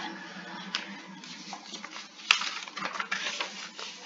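A few scattered clicks from a computer mouse and keyboard over a steady low background hum.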